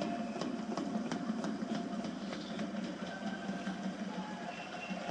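Baseball fans' cheering section singing a player's cheer song in unison, over a steady beat of about two strokes a second.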